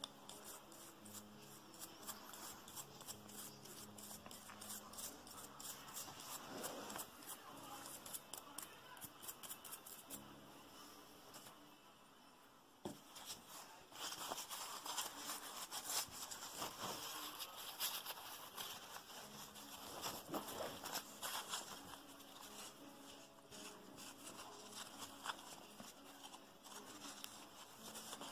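A toothbrush scrubbing a hand coffee grinder's steel axle in quick short strokes. About halfway through it gives way to louder, coarser rubbing as the axle is wiped in a paper towel.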